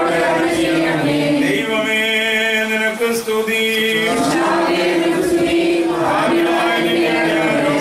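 A congregation of men and women chanting a liturgical hymn together, led by a priest at a microphone, in slow, long-held notes.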